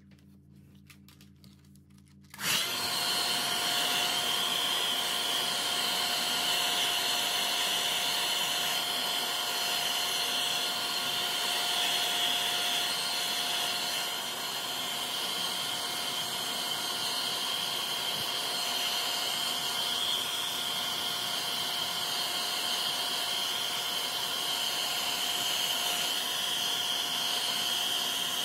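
Handheld hair dryer switched on about two and a half seconds in, then blowing steadily, with a steady whine over the rush of air.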